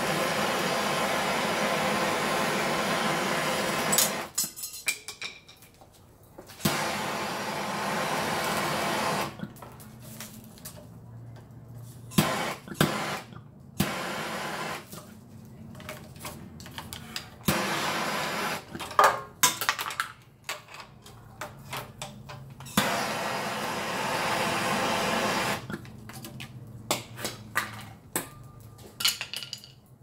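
Hot-air gun blowing in several steady spells a few seconds long, switching off between them, while a screwdriver pries at a car ECU's connector with sharp metal clicks and scrapes. The heat is melting the solder so the connector can be worked off the circuit board.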